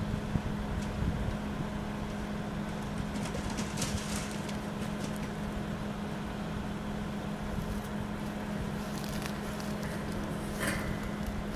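A steady low mechanical hum at one constant pitch, with a few faint crackles and rustles about four seconds in and again near the end.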